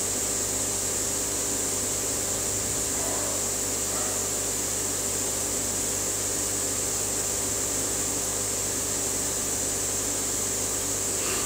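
Steady mechanical hum with a constant high hiss and no distinct events, apart from two faint short falling sounds about three and four seconds in.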